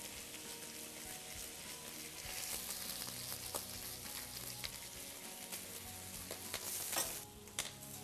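Water sizzling and hissing on a hot flat-top griddle around an egg frying in a metal ring under a glass lid, making steam to set the top of the egg. The sizzle grows louder about two seconds in, with a few sharp clicks, the loudest about seven seconds in, after which the hiss drops.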